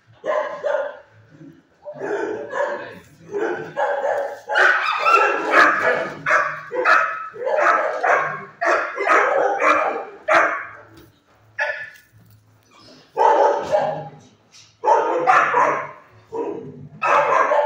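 Dogs barking in shelter kennels: dense, repeated barks with a short lull about eleven seconds in.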